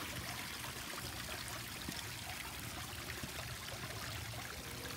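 Water running steadily over the rocks of a small garden-pond waterfall into the pond.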